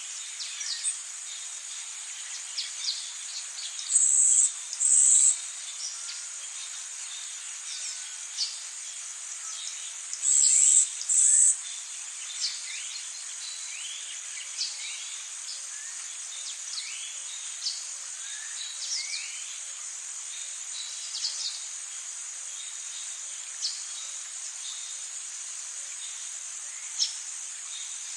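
Tropical forest ambience: a steady high-pitched insect drone with short bird chirps and whistles scattered throughout. Twice, about four and ten seconds in, a pair of loud, short, high buzzing calls stands out above the rest.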